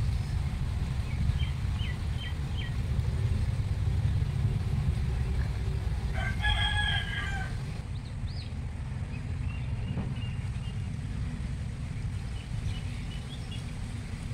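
A rooster crows once, about six seconds in, over a steady low rumble of wind on the microphone. A few short bird chirps come about two seconds in and again after the crow.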